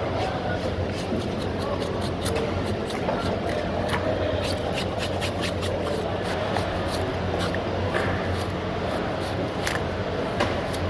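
A knife blade scraping and slicing along the skin and flesh of a large tuna on a wooden cutting board: a dense run of short crisp ticks and scrapes, over a steady low background hum.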